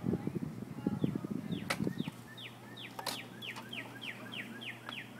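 A songbird singing a fast series of repeated downslurred whistled notes, about four a second, starting about two seconds in. Before that, low rumbling noise on the microphone, with a few sharp clicks.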